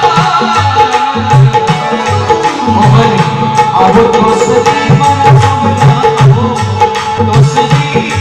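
Dholak playing a steady folk rhythm, its deep bass strokes landing about twice a second, under held notes from an accompanying melodic instrument.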